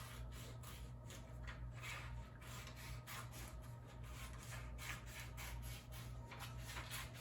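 Scissors cutting across a paper worksheet: a series of quiet, irregular snips with paper rustling.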